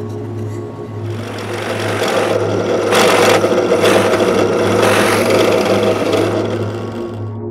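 Power drill boring a hole through a disc of glued popsicle sticks: the motor runs and the bit cuts into the wood. It rises about a second in, flares several times, and drops off near the end.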